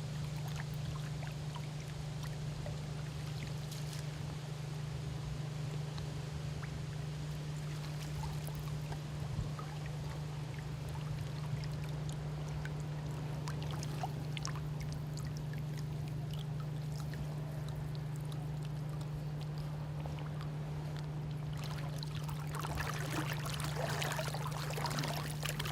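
River water flowing steadily, with a louder, busier stretch of water sound near the end.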